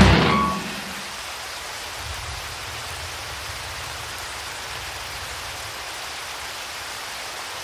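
Rock music stops about half a second in. A steady, even hiss follows.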